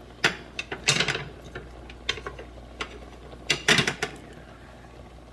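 A series of irregular clicks and light knocks from cookware being handled at the stove, with two quick clusters of clatter, one about a second in and one near the end.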